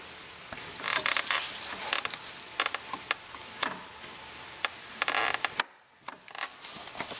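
A screwdriver blade prying at the orange locking tab of a plastic automotive electrical connector: a series of scattered clicks and short scrapes of metal on plastic as the tab is worked loose.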